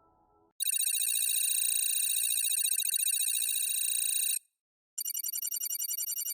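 Telephone ringing sound effect: a bright, rapidly trilling bell ring lasting nearly four seconds, a brief gap, then a second ring. It starts about half a second in, after the faint end of a fading musical sound.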